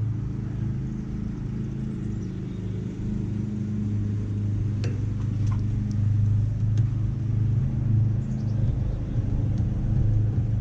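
A steady low machine hum, even in pitch, with a few light clicks around the middle. The mower itself is not running: it will not crank.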